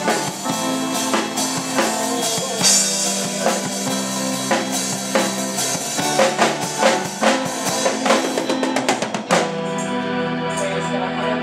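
Band music with a drum kit driving it over sustained chords, the drums playing a busy run of hits about six to nine seconds in. About nine seconds in the drums stop and the held chords carry on alone.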